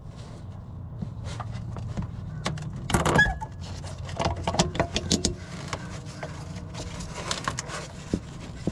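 Handling noise from fitting a bulb into the back of a Honda Pilot headlight housing: scattered small clicks and knocks of plastic and metal with rubbing of the rubber dust boot, the busiest about three seconds in, over a steady low hum.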